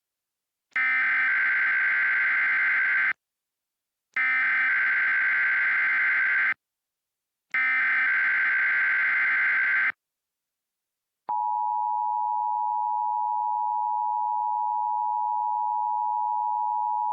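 Emergency Alert System test: three identical bursts of SAME header data, a buzzing electronic screech of about two and a half seconds each with a second of silence between, followed about two-thirds of the way in by the NOAA Weather Radio warning alarm, a single steady high-pitched tone that holds unbroken.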